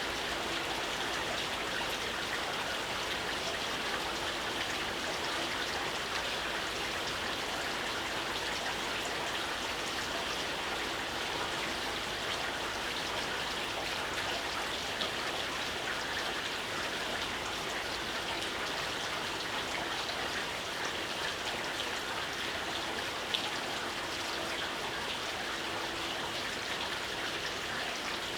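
Gentle rain falling steadily: an even hiss of many fine drops.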